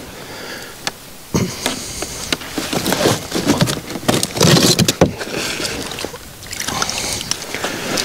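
Irregular rustling and scuffing of a winter jacket and gear being handled, with a few sharp knocks, about a second and a half in and again about five seconds in.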